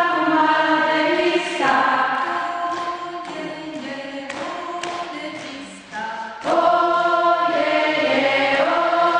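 A group of women singing a children's song together, unaccompanied, with a few hand claps. The singing drops quieter for a few seconds in the middle and comes back full about six and a half seconds in.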